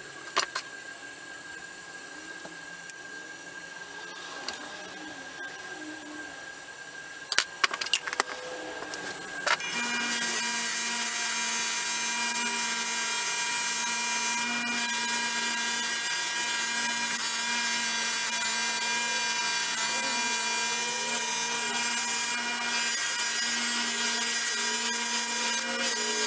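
A few sharp clicks and knocks, then about ten seconds in an electric power tool, of the kind used to sharpen and polish a screwdriver, starts and runs steadily with a held hum, its level dipping briefly a couple of times.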